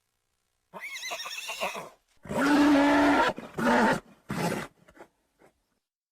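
A horse whinnying. A high, quavering whinny of about a second is followed by three louder, lower calls with short breaks between them.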